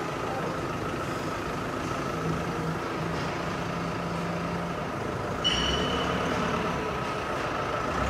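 Steady machinery hum of a working factory, with a faint constant tone. About five and a half seconds in, a low rumble swells and a short high-pitched whine sounds.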